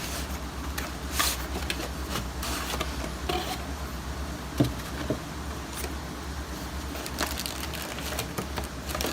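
Cardboard box and plastic packaging being opened and handled: scattered rustles, scrapes and clicks, with one sharper click about four and a half seconds in.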